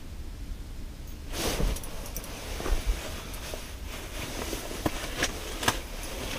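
Rustling of clothing and gear with scattered sharp clicks and light knocks, starting about a second in, as an ice angler in a fabric shelter moves and works a jigging rod on a hooked fish.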